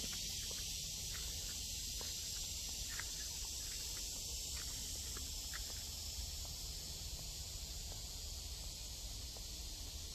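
Steady high-pitched insect chorus, an unbroken hiss that holds even throughout.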